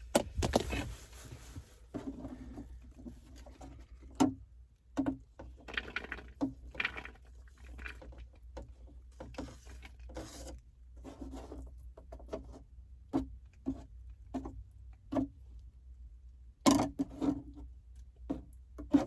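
Kitchen knife cutting green onions on a cutting board: irregular light knocks and taps with small scrapes between them, busier near the end.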